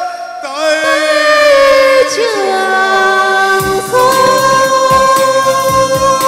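A voice singing a Vietnamese folk-style song in long held notes with wavering ornaments, over instrumental accompaniment. About halfway through, a run of light percussive strikes comes in.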